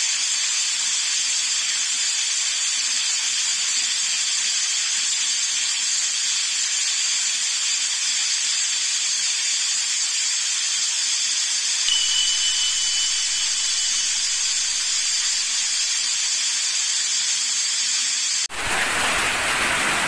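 Heavy rain mixed with small hail falling on the ground, a steady dense hiss. Near the end it cuts abruptly to a fuller, deeper rush of a heavy downpour.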